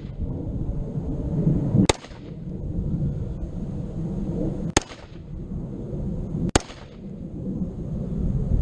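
Springfield Saint Edge AR-15 rifle firing three single shots, about two to three seconds apart, each a sharp crack with a brief echo. A steady low rumble runs between the shots.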